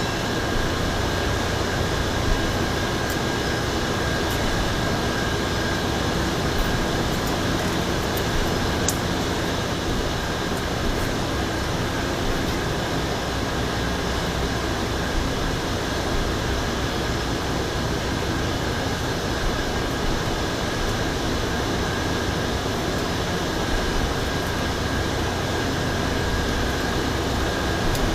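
Steady machine hum and hiss, like a fan or air conditioner running, with a thin high tone held throughout and a few faint ticks.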